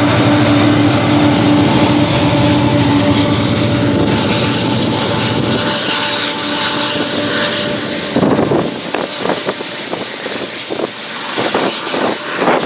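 Diesel engine drone of a Union Pacific freight locomotive that has just passed, fading as it moves away over the first several seconds. In the last few seconds it gives way to uneven, gusty rumbling.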